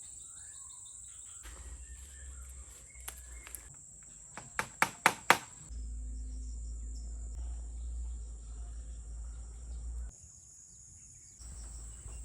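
Outdoor ambience with a steady high-pitched drone of insects such as crickets. A low rumble comes and goes in stretches, and four quick sharp knocks sound about halfway through.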